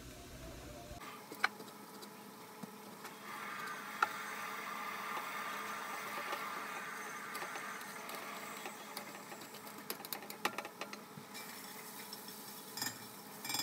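Faint sizzle of onions and green peppers frying in oil in a skillet, with scattered light clicks and taps of a knife and utensils against a plate.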